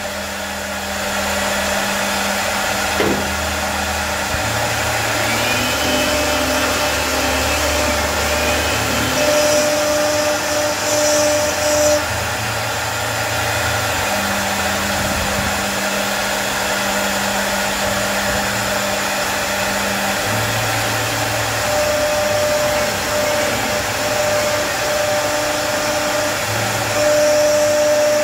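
CNC wood router carving: the spindle runs with a steady, loud hiss. Pitched motor tones switch on and off and jump between a few fixed pitches every few seconds as the machine moves.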